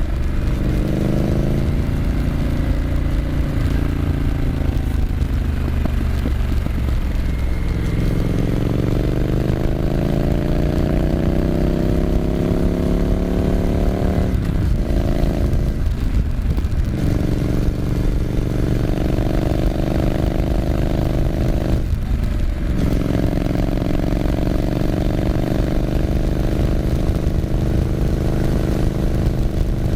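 Triumph Scrambler 900's parallel-twin engine running with a deep, steady rumble. Its pitch sags and then climbs slowly back over the first fifteen seconds or so, then briefly drops three times.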